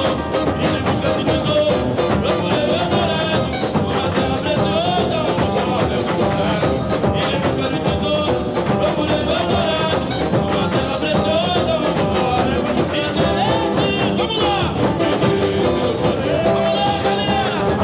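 A samba-enredo sung by a lead singer over a samba school's drum section, with steady, driving percussion under the melody.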